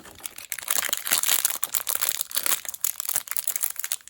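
Thin plastic toy packaging crinkling and crackling as it is handled and opened by hand, in a dense run of quick crackles.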